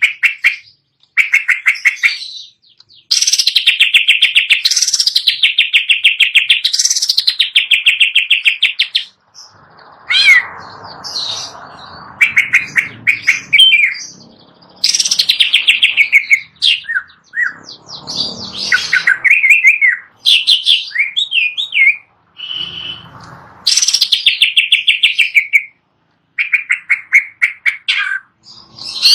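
Green leafbird (cucak ijo) singing: fast rattling trills and sweeping, rising and falling whistled phrases in short bursts with brief pauses, mixed with a few rougher, scratchy notes.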